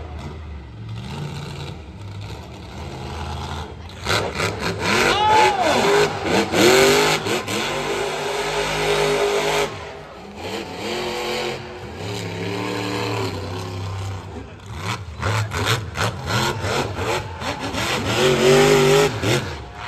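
Monster truck engine revving, its pitch climbing and dropping again several times, loudest about a third of the way in and again near the end.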